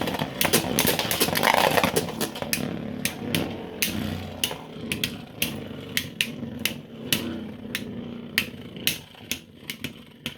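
Two 3D-printed Beyblade spinning tops battling in a stadium: a steady scraping spin with quick, irregular clacks as the tops strike each other and the stadium wall, the clacks spacing out toward the end.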